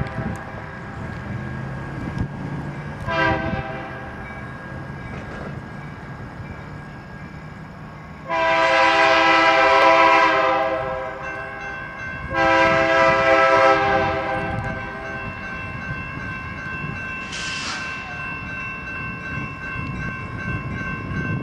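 Air horn of an approaching EMD SD60M diesel locomotive: a short blast, then two long blasts, then a brief higher toot near the end. A steady low diesel rumble runs underneath.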